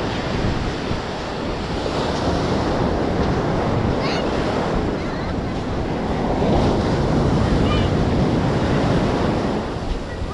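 Ocean surf breaking and washing up the sand, with wind buffeting the microphone; a little louder in the second half.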